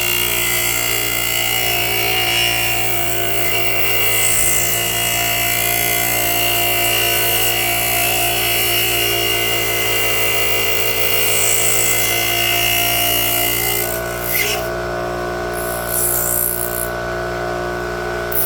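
Electric grinder running with a steady motor whine while it grinds away the plastic end of a Molex connector, the grinding hiss going on without a break. About 14 seconds in the grinding stops while the motor keeps running, with a few short scrapes after.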